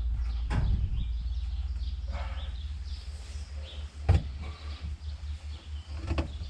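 Window glass and its rubber seal being worked into a Land Cruiser body opening. There is rubbing and a few sharp knocks over a steady low rumble.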